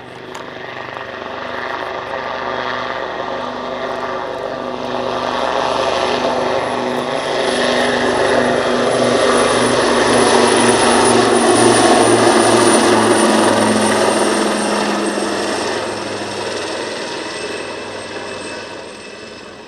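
Leonardo Wildcat HMA.2 helicopter flying past: rotor beat and high turbine whine grow louder to a peak about twelve seconds in, then fade. The whine drops slightly in pitch as it goes by.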